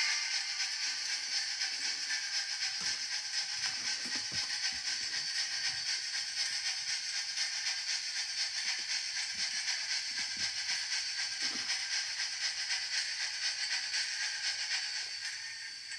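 Large-scale model steam locomotive running along the track, its sound unit giving a steady, fast-pulsing steam hiss over the mechanical whir of its drive, with a few light knocks.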